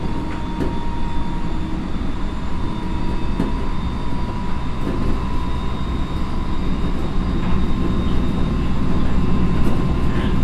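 Running sound heard inside an Odakyu 1000-series electric train with a Mitsubishi GTO-VVVF inverter: a low rumble of wheels on rail with a steady inverter whine on top, growing slightly louder near the end, plus a few light clicks.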